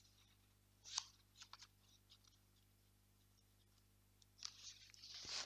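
Near silence: room tone with a few faint clicks, one sharper about a second in, and a soft hiss near the end.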